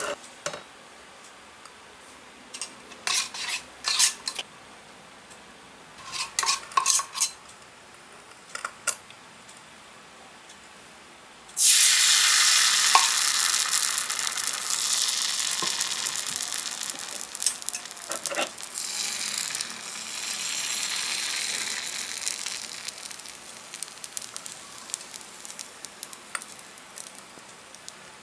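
Crepe batter hitting hot oil in a miniature cast-iron skillet: a loud sizzle starts suddenly about twelve seconds in and slowly dies down, swelling again briefly a few seconds later. Before it, several short light clinks and scrapes of the small pan and utensils.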